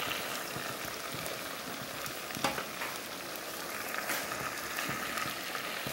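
Chicken pieces frying in oil in a pot: a steady sizzle with a few sharper crackles, the sound of the meat's own water cooking off as it starts to fry.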